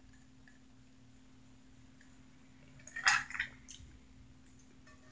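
A person drinking from a glass: near quiet over a faint steady hum, then a short, wet slurp-and-swallow sound in two or three quick pulses about three seconds in.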